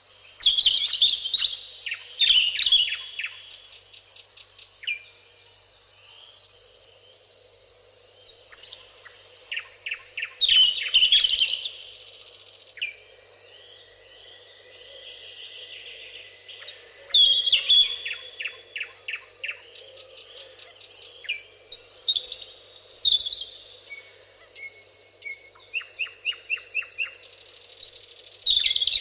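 Several songbirds singing and calling over one another, with loud bursts of fast chirping trills every few seconds. A steady thin high-pitched tone runs underneath.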